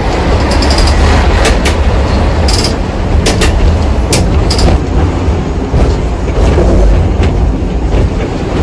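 Vintage open electric tramcar running along its track: a loud, steady rumble with a run of sharp wheel clacks over the rail joints, some with a brief high ring, in the first half.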